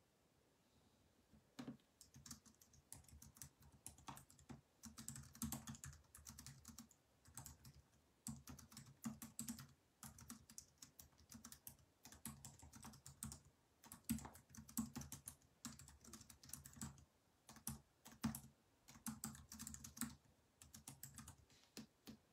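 Faint bursts of typing on a computer keyboard: irregular runs of quick keystroke clicks, each with a soft thud, starting about a second and a half in.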